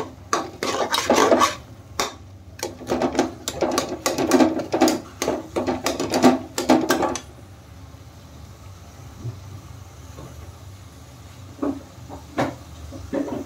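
Steel ladle scraping and stirring a thick vegetable mixture in a metal kadhai, in quick repeated strokes. The stirring stops about seven seconds in, leaving a low steady hum, with a few light scrapes near the end.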